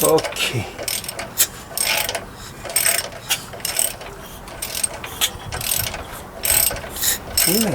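Ratchet wrench clicking in short irregular runs as a Honda CB400 engine is turned over by hand, with puffs of air from the cylinder. This air-purging sound is taken as a sign that the valve timing is now set right.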